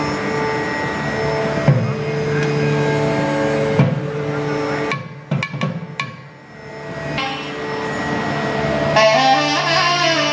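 Nadhaswaram playing raga Abheri over a steady drone, with a couple of thavil drum strokes early on. Around the middle the music thins and dips, with a few sharp clicks, and near the end the nadhaswaram comes back in strongly with a wavering, ornamented melody.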